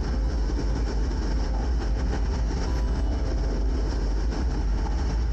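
Steady cockpit noise of a Sonex Xenos light aircraft on final approach with its engine throttled back: an even, low rumble that does not change.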